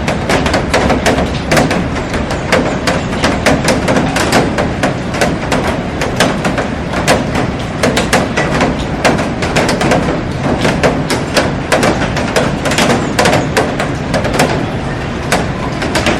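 Heavy rain falling on a glass roof and garden: a loud, steady hiss packed with many sharp, close-set drop impacts.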